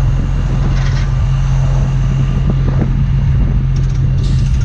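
Heavy wrecker's diesel engine running at a steady speed, a constant low drone.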